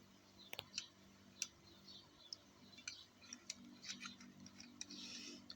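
Faint, scattered small clicks and taps of a die-cast metal toy van being handled and turned over, its wheels and body knocking lightly against fingers and the work surface.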